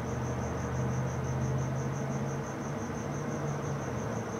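Crickets chirping outdoors at night, a high trill of rapid, even pulses, over a steady low hum.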